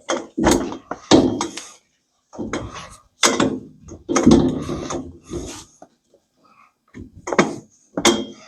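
Hand work on a sliding-door lock mounted on a wooden frame: irregular bursts of scraping and rubbing, with a few sharp knocks, dying down for a moment about two seconds in and again for about a second near the end.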